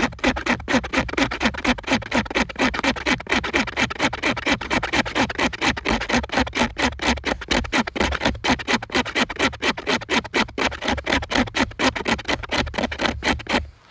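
Knife blade scraping across birch bark in quick, even strokes, about four or five a second, raking off fine tinder shavings for a fire. The scraping stops abruptly near the end.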